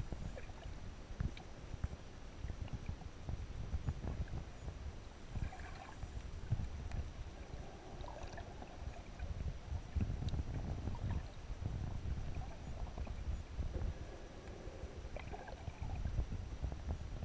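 Muffled underwater ambience picked up by a submerged camera: an uneven low rumble of moving water and surge against the housing, with a few faint clicks.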